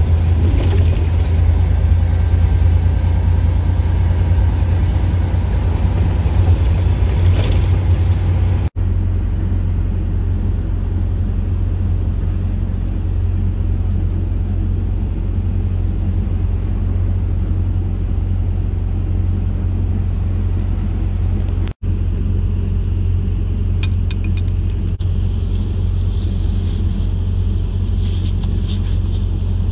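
Heavy truck's diesel engine idling with a steady low rumble, broken twice by very short dropouts. A few light clicks come near the end.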